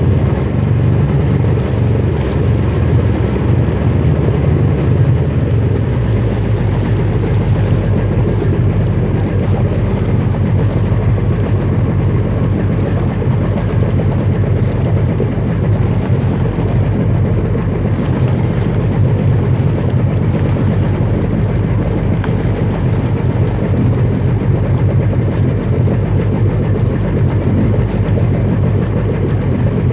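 Sea-Doo personal watercraft running steadily under way, with scattered light ticks over the engine and water noise; the low drone steps up slightly about six seconds in.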